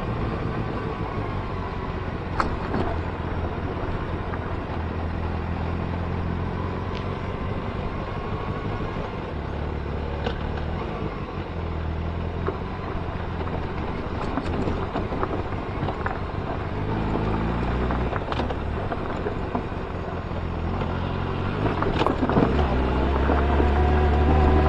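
Motorcycle engine running while riding, under steady road and wind noise; the engine pitch rises near the end as it accelerates.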